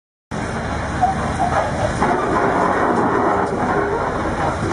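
After a moment's silence, heavy diesel truck engines running steadily as a recovery truck pulls a stuck tractor unit on a tow chain.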